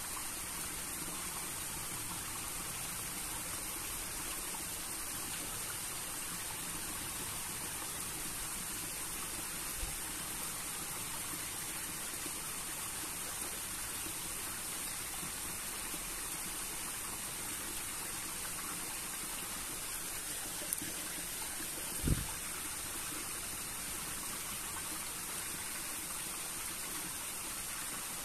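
Shallow stream trickling steadily over rocks, with one soft low thump about three quarters of the way through.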